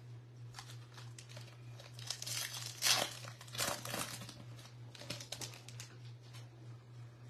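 A foil trading-card pack, 2024 Bowman Baseball, being torn open and crinkled by hand. The crackling is loudest about three seconds in. A steady low hum runs underneath.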